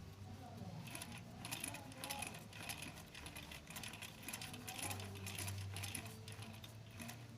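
Sewing machine running, its mechanism clicking quickly and unevenly, with a faint low hum in parts, as it is test-run after reassembly.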